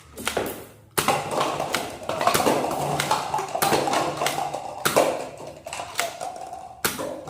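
Plastic toy blasters being handled, a busy run of clicks, taps and knocks with sharper knocks about a second in, around five seconds and near the end.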